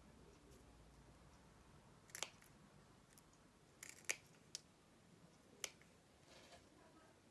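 Small scissors snipping a piece of fabric: a few short, sharp snips spread over several seconds, with quiet between them.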